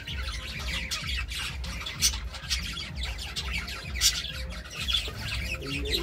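Budgerigars chattering and warbling, a steady run of quick high chirps and squawks, with sharper louder calls about two and four seconds in. A low rumble runs underneath.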